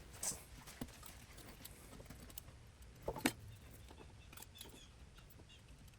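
Scattered light clicks and taps from small plastic and electronic parts of a car radio being handled as the digitizer is unhooked. Two louder clicks come a little after three seconds in, and faint ticks follow.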